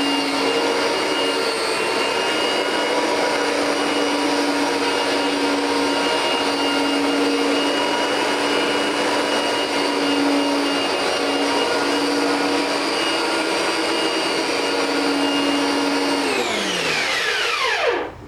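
Kenmore Drytech fan-first dual-cyclone dry-shampoo vacuum cleaner running with a loud, steady whine. About 16 seconds in it is switched off and its motor winds down, the pitch falling until it stops just before the end.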